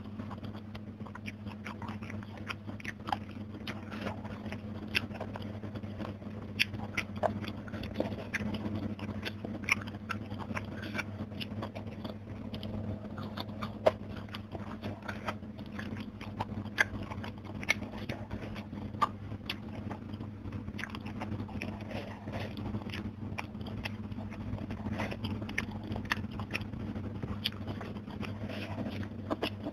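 Close-miked chewing and crunching of crispy fried fish (kriuk ketulang) with sambal, eaten by hand. Sharp crunchy clicks come at irregular intervals over a faint steady low hum.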